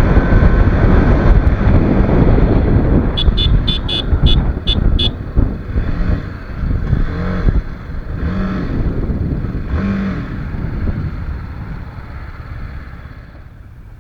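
TVS Apache RR 310 motorcycle riding at speed, with heavy wind rush on the microphone that dies down over the last few seconds as the bike slows. About three seconds in there is a quick run of about seven short high beeps, and a few brief horn-like tones sound a little later.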